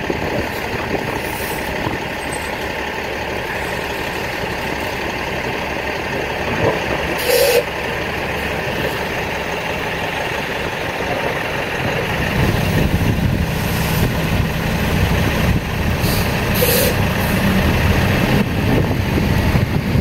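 Diesel engine of a city snowplow truck running as it comes up the road with its plow blade down in the snow. It grows louder from about twelve seconds in as the truck draws close, with a couple of brief hisses along the way.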